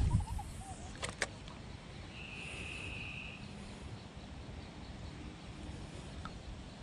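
Open-air pond ambience with low wind rumble: two sharp clicks about a second in, then a high, even buzzing trill from an animal at the pond, lasting about a second and a half.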